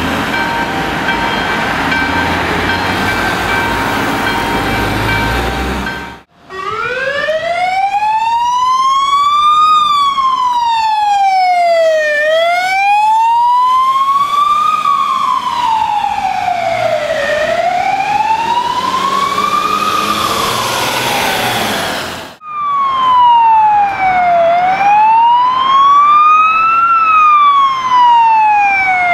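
Ambulance's electronic wail siren rising and falling slowly, each up-and-down taking about four to five seconds, after a few seconds of steady traffic noise. The siren breaks off about two-thirds of the way through and starts again at once, its cycles a little quicker.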